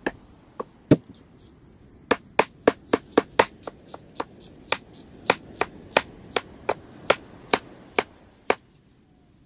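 Knife slicing red onion on a wooden cutting board: a steady series of sharp chops, about three a second, from about two seconds in until shortly before the end, after a few scattered cuts.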